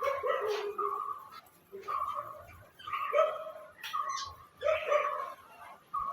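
A dog making short, repeated pitched calls, about one a second.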